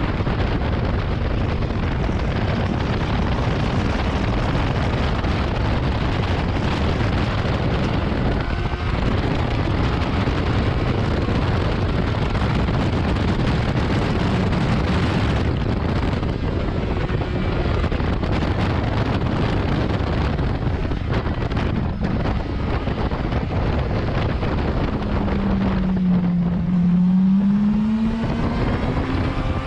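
Onboard sound of a 2019 Yamaha R6's inline-four engine at track speed, largely buried under heavy wind rush on the microphone. The wind eases about halfway through as the bike slows. Near the end the engine drops to a low note and climbs again as the bike pulls out of a slow corner.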